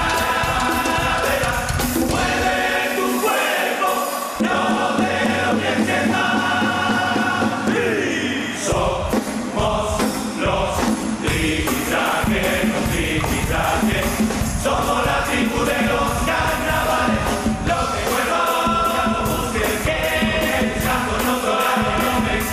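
A murga, a large carnival choir of men's voices, singing in unison over a steady beat of drums and cymbals.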